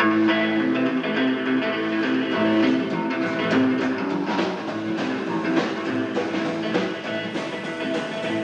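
Instrumental opening of a rock band's song, with guitar and drums, starting abruptly at the very beginning.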